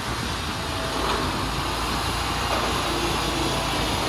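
Engine of a SCAG V-Ride II stand-on commercial mower running steadily while it pushes a BOSS V-plow through light snow, growing a little louder as it comes closer.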